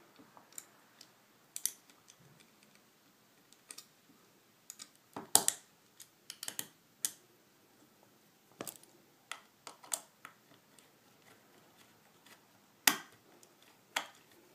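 Small metal clicks and taps, irregular and spaced out, from the clamp and spring of a Hot Tools gold curling iron being pressed into place and worked at the hinge. A sharper click comes about five seconds in and another near the end.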